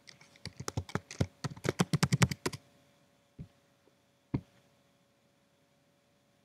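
Fast typing on a computer keyboard for about two and a half seconds, a search query being entered, followed by two single clicks about a second apart.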